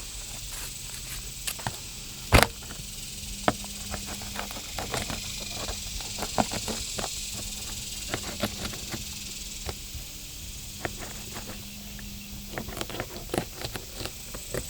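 Fillet knife cutting along a buffalo fish's rib cage: irregular short clicks and cracks as the blade passes the ribs, one sharper crack about two seconds in, over a steady high hiss.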